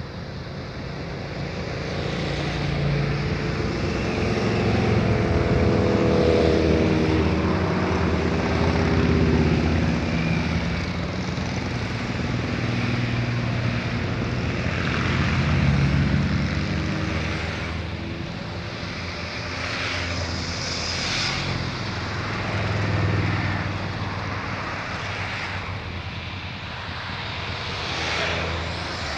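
Motorcycles riding past one after another, each engine note swelling and then falling away as it goes by, over a steady low engine drone.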